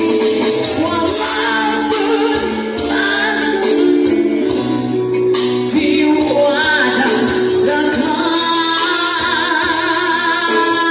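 A man singing a very high melody with vibrato over band music with a jingling tambourine.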